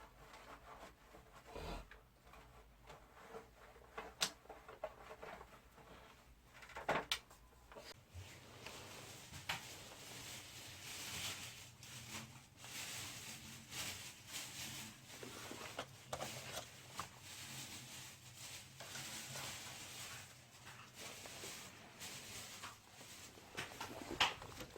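Faint, scattered clicks and knocks of air-conditioner parts being handled and taken apart. From about eight seconds in, a faint steady hum and a soft rubbing hiss run underneath.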